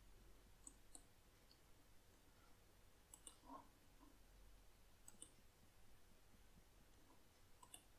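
Near silence with faint computer mouse clicks: four pairs of short clicks, a couple of seconds apart.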